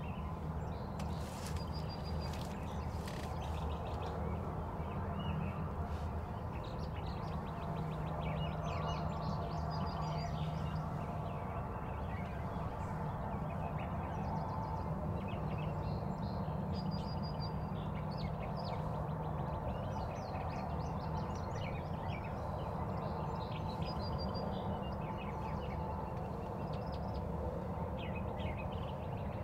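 Songbirds chirping in short, scattered calls over a steady low rumble.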